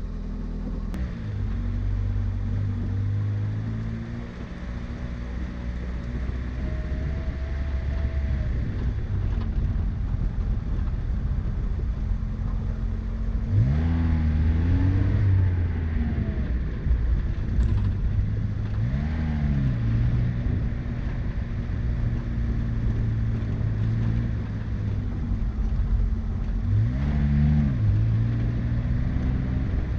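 Car engine running steadily, with its revs rising and falling sharply three times.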